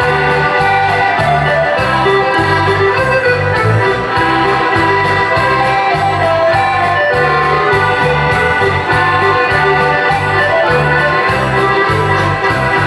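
Dutch folk dance music playing: a keyboard-like melody over a steady pulsing bass.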